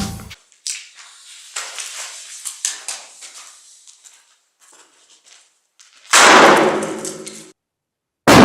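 Light clicks and rattles, then two loud bangs about two seconds apart from an airsoft grenade's firecracker charge, each fading over about a second.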